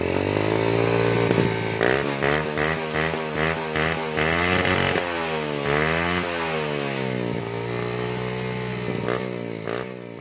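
Yamaha Jupiter Z's single-cylinder four-stroke engine revving through its stock muffler, which has been hollowed out and fitted with a new baffle. It rises in one rev, then gives a quick run of throttle blips and another rev up and down, and settles to a lower steady speed.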